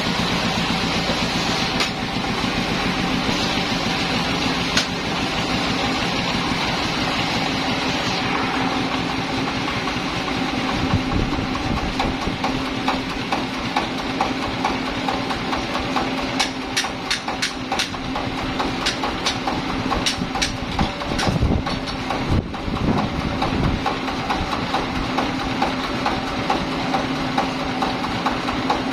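Sawmill engine running steadily, with a fast, even pulse and a constant hum. A cluster of sharp knocks comes a little past the middle.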